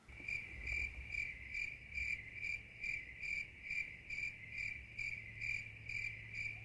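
Cricket chirping in a steady high trill, about two chirps a second, starting abruptly at the cut to the end card like an added sound effect.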